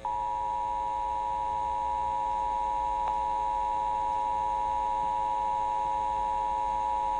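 Emergency Alert System two-tone attention signal: two steady, pitched tones sounding together without a break, the alarm that announces an emergency alert, here a tornado warning.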